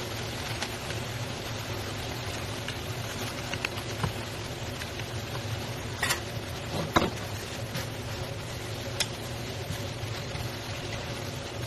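Vegetables and pork sizzling in a granite-coated wok as a wooden spatula stirs them, with a few sharp knocks and scrapes of the spatula against the pan, the loudest about seven seconds in. A steady low hum runs underneath.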